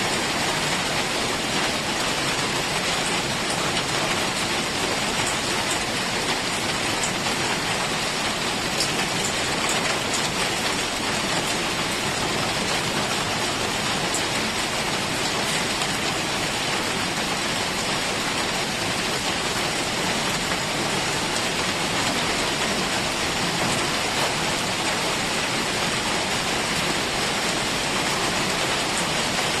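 Heavy rain falling steadily in a forest, an even hiss of rain with no change in level.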